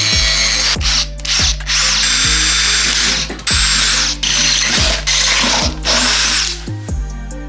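Metabo cordless drill boring through a steel plate held in a vise. The drill runs in bursts, stopping and starting several times, over background music with a steady bass beat.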